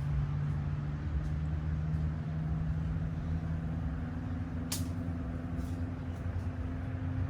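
An engine running steadily with a low hum, with one sharp click about two-thirds of the way through.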